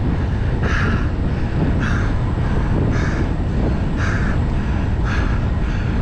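Wind rushing over a camera microphone on a road bike at speed: a steady low rumble, with a short rasping sound repeating about once a second.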